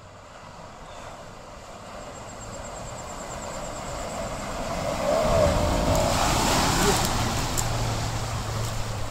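Jeep Grand Cherokee on 37-inch tyres driving through a shallow river. Its engine grows louder as it approaches, with water churning and splashing around the wheels; the sound is loudest about five to seven seconds in as it passes close by, then settles into a steady engine drone.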